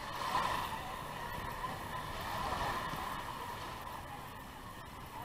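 Small surf washing up onto the sand at the water's edge, a steady rush that swells about half a second in and again around two and a half seconds.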